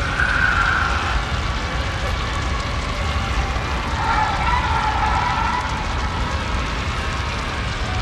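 Horror sound-effect ambience: a steady low rumble with ghostly wailing cries over it, one in the first second and a lower, drawn-out wail from about four to six seconds in.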